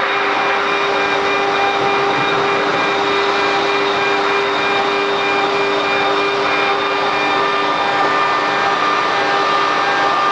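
QS6090 CNC router running, its spindle giving a steady whine over a dense cutting noise.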